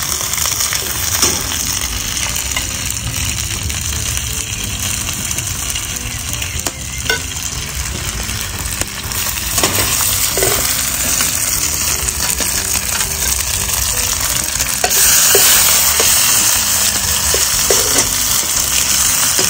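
Boiled mantı dumplings sizzling as they fry in melted butter in a frying pan, with a few clicks of metal tongs against the pan as they are turned. The sizzle gets louder about fifteen seconds in.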